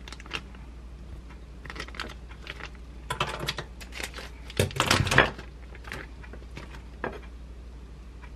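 A plastic food pouch crinkling and clicking as it is handled and cut open with kitchen scissors, with the loudest rustling and knocking about five seconds in as the patty comes out onto a ceramic plate. A steady low hum runs underneath.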